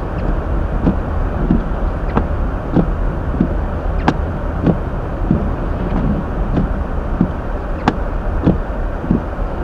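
A car driving on a snow-covered road: a steady low rumble of road and tyre noise, with light knocks coming at a fairly even pace about every two-thirds of a second.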